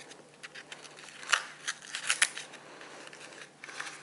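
Red paper wrapping crinkling and crackling as a small package is unfolded by hand: a string of short crisp rustles, the loudest about a second and a third in and again around two seconds in.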